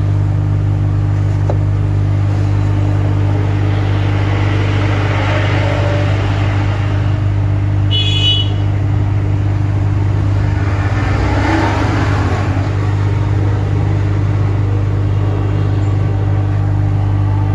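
Steady low electrical hum from mains-powered workbench equipment, with a short high beep about eight seconds in and passing hiss around five and twelve seconds.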